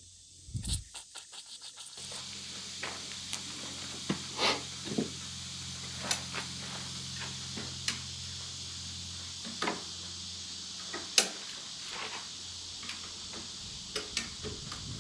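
Small metal tools working a hydraulic lift cylinder's gland nut: a quick run of light clicks as a pick scrapes dirt from the spanner-wrench holes, then scattered sharp clicks and knocks of a spanner wrench on the nut. A steady low hum and hiss sit underneath.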